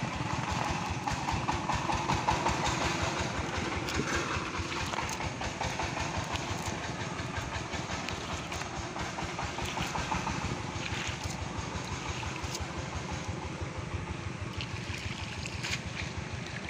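A small engine running steadily with a rapid, even pulsing beat under a hiss, slowly fading.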